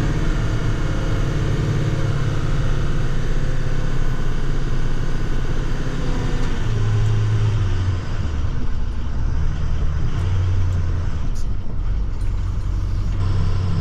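Salt truck's engine heard from inside the cab, running steadily at raised revs. Its pitch drops and shifts in steps from about seven seconds in as the truck slows.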